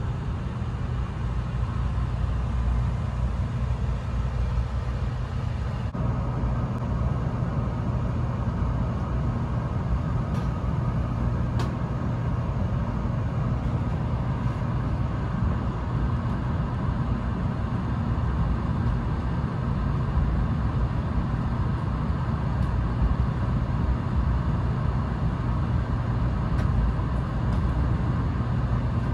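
700 series Shinkansen running, heard from inside the passenger cabin as a steady low rumble with a hum under it; the noise grows fuller about six seconds in.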